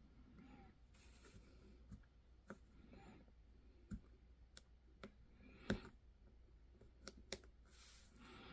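Faint scattered clicks and light scraping of small 3D-printed plastic parts being handled and trimmed. There are about eight sharp ticks at irregular intervals, the clearest just before the sixth second.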